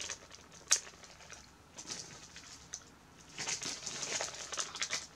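Wax-melt packaging handled: a sharp click under a second in, then crinkling and rustling in two short stretches.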